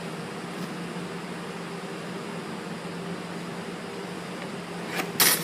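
Steady hum of room ventilation, a fan or air-conditioning drone. About five seconds in, a quick run of sharp clicks and knocks.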